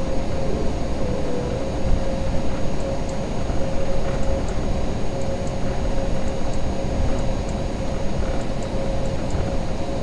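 Airbus A321-231 jet engines (IAE V2500s) running at taxi power, heard inside the cabin: a steady low rumble with one steady whine.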